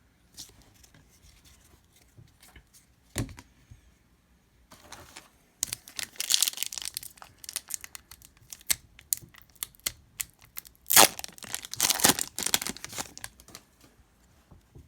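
Wrapper of an Upper Deck hockey card pack being torn open and crinkled, with one burst of tearing about five seconds in and a louder one about eleven seconds in, and light clicks of handling in between.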